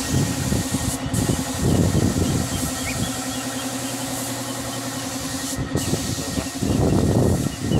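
Workshop air compressor running steadily to feed a paint spray gun. Irregular rumbling noise on the microphone comes and goes, strongest near the end.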